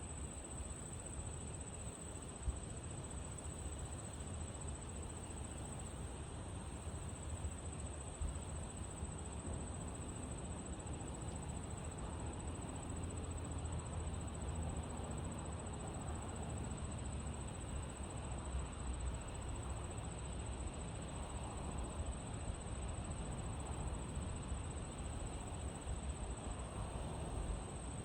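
Wind rustling through tall prairie grass, with a steady high-pitched chirping of insects throughout. One brief click about two and a half seconds in.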